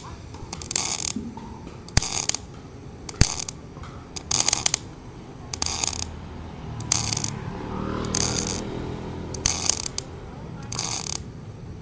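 Sanjoe NBC-500 MIG welder in spot (pulse) welding mode with the trigger held: the arc strikes in short crackling bursts about once every second and a quarter, with a pause between each, as set by the weld-time and pause-time timers. The weld time is set very short.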